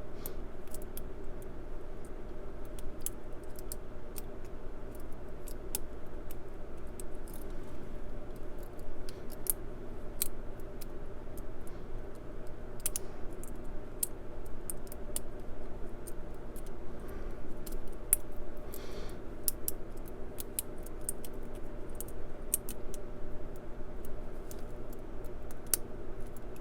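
Small, irregular metallic clicks and scrapes of a lock pick working the pins inside a Brinks 50mm padlock, over a steady low hum.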